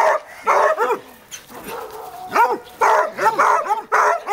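Hog dog baying at a raccoon caged in a wire live trap: a run of short barks, each rising and falling in pitch, several a second, with a brief lull between about one and two seconds in.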